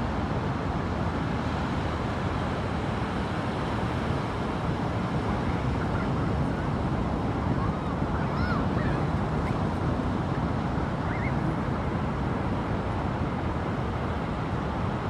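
Ocean surf making a steady, even rush, with a few short, faint bird calls about six to eleven seconds in.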